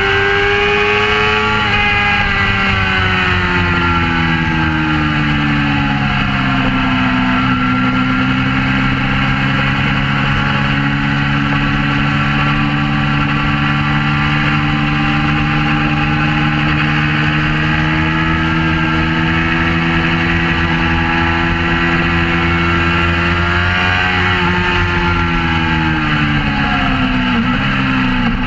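Suzuki GSX-R600 K4's inline-four engine running on board at speed, its revs easing down over the first few seconds and then held steady for a long stretch through a bend. Near the end the revs rise briefly, drop and climb again.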